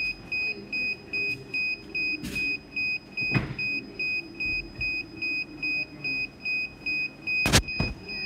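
Electronic beeper sounding an unbroken series of short, high beeps, about three a second, with two sharp knocks, the louder one near the end.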